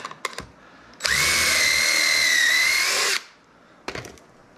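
Cordless drill boring a pocket hole through a wooden board with the stepped bit of a Kreg pocket-hole jig: a few handling clicks, then a steady high whine about a second in that runs for about two seconds and cuts off suddenly.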